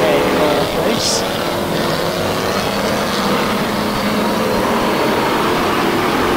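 Several BriSCA F1 stock cars' V8 engines running hard together as the cars race round a shale oval, a steady mix of engine notes, with a brief hiss about a second in.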